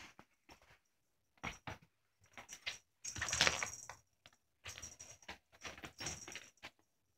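Short bursts of rustling and scuffling as a cat pounces on and wrestles a feathered rope teaser toy on a bed comforter. The longest and loudest rustle comes about three seconds in.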